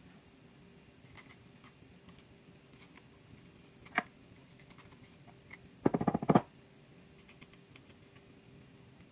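Taps and clicks on a wooden cutting board as a red bell pepper is cored and its seeds knocked out by hand: one sharp tap about four seconds in, then a quick rattle of about eight taps around six seconds in, the loudest sound.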